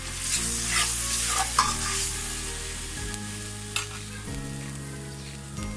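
Chopped onions and garlic paste sizzling in oil in a metal karahi with a little water just added, while a spatula stirs and scrapes against the pan with a few sharp knocks. The sizzle is loudest in the first two seconds, then settles lower.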